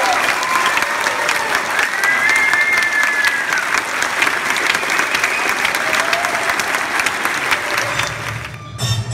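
A large audience applauding, dense and steady. The applause dies away near the end.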